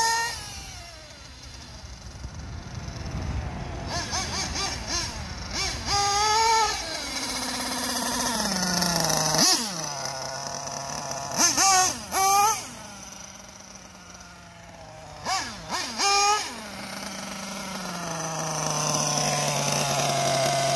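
Hobao Hyper 8 1/8 buggy's Mac 28 nitro engine, tuned rich, revving in several short high-pitched bursts with the pitch falling away after each as the car passes, then settling to a lower steady idle near the end.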